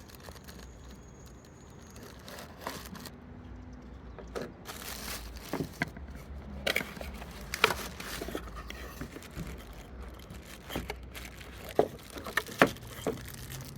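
A utility knife cutting packing tape, then a cardboard box being pried open and its packing torn and rustled. Irregular scraping and crinkling run throughout, broken by several sharp clicks and knocks, the loudest about halfway and twice near the end.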